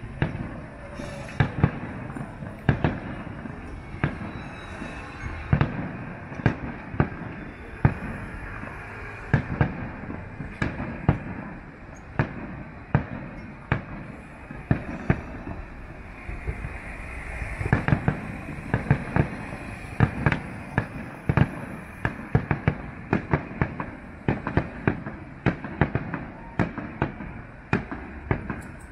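Distant aerial fireworks display: an irregular stream of sharp bangs, at times several a second, over a steady crackling din of bursting shells.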